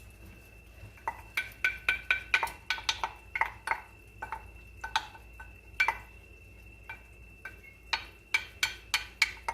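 A utensil stirring a thickening flour-and-milk sauce in a pan, knocking against the pan in quick runs of ringing clinks, a few a second, with short pauses between runs.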